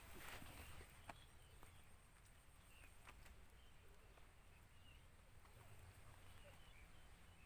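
Near silence: a faint low rumble of outdoor background, with a couple of soft clicks and a few faint short chirps.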